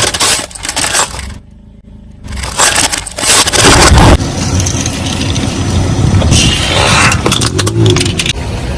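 Objects crunching, cracking and breaking under a car's tyres as it rolls over them, in loud separate bursts with a brief quieter gap about a second and a half in.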